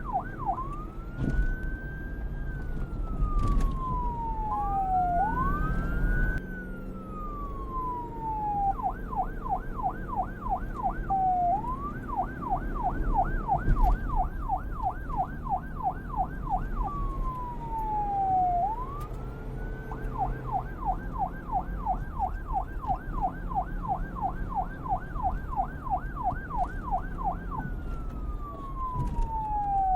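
Police car's electronic siren switching between a slow wail that rises and falls over a few seconds and a fast yelp of about three to four sweeps a second, over a low rumble.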